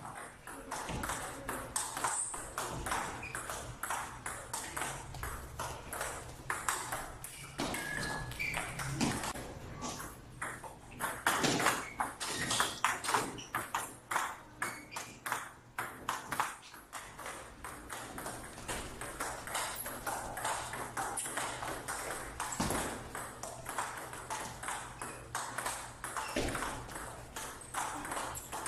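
Table tennis rally: the plastic ball clicks sharply off the paddles and the table in quick succession, over a low steady hum.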